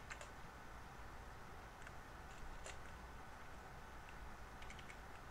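Faint, scattered computer keyboard keystrokes: a few single clicks, then a short quick run near the end, over a low steady hum.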